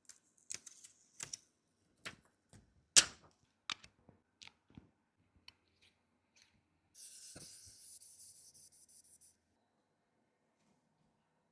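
Small repair tools clicking and tapping against a smartphone's body and back glass during a back-glass replacement, one sharp tap louder than the rest. About halfway through comes a fluttering, crackling hiss of about two seconds, typical of adhesive or protective film being peeled off.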